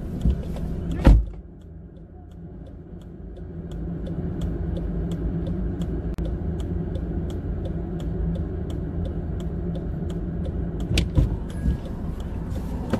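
A car door is shut about a second in, heard from inside the cabin. Then a steady low vehicle rumble with a fast, even ticking, and a few knocks near the end as the door is handled again.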